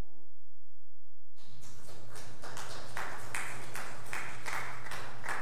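The final held chord of the song's keyboard accompaniment dies away. About a second and a half in, a congregation starts applauding, a dense, steady clapping.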